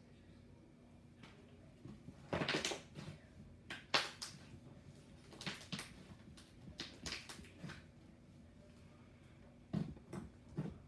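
Butter slime being squished and stretched by hand: irregular soft squelches and small pops in short bursts, then a pause of a couple of seconds, then more near the end.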